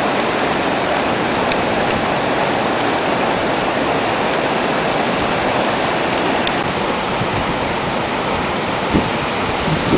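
Fast river water rushing over rocks and rapids below a weir, a steady, even rush. A brief low thump comes near the end.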